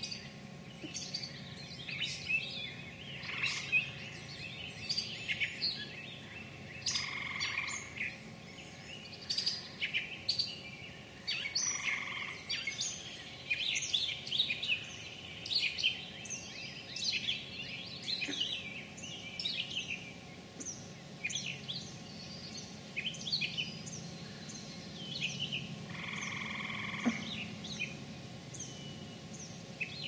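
Many songbirds singing and calling over one another in a continuous, overlapping chorus of short chirps and song phrases, with a faint low steady hum underneath.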